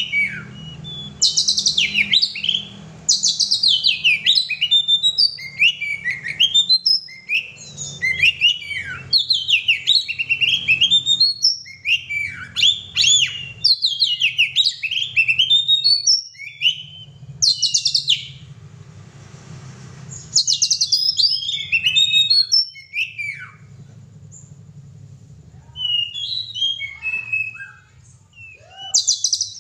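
Oriental magpie-robin (kacer) singing in full voice: loud, rapid, varied phrases of high whistles, slurs and chattering notes, with short breaks and a quieter few seconds of softer notes about three quarters of the way through.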